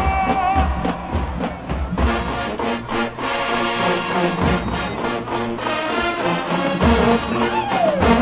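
Marching band playing, with brass over a steady beat of drum hits. A held note ends about half a second in, and a note slides down near the end.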